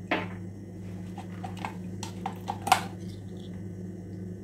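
A few light clinks and taps of a steel spoon against kitchen containers: one just after the start and a quick cluster of several about two to three seconds in. A steady low hum runs underneath.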